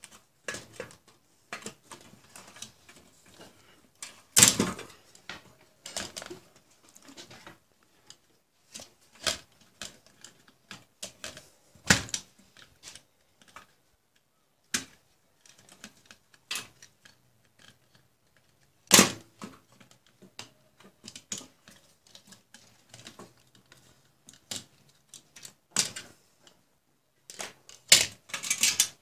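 Irregular clicks, taps and knocks of hands working on a dismantled LCD monitor's metal frame and circuit boards, with a few sharper knocks spread through.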